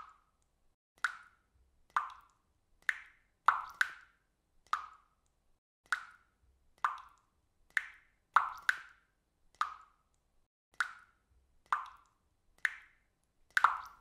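Water drops dripping from a roof edge after rain, each landing with a short plop, about one a second and now and then two in quick succession, with quiet in between.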